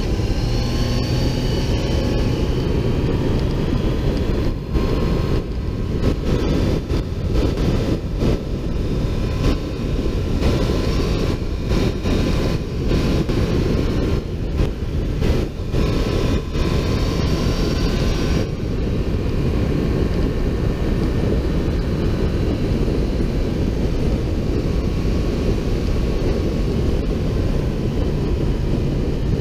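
Sport motorcycle riding at road speed: heavy wind rush over a fairing-mounted microphone, with the engine's note riding above it and drifting up and down with the throttle.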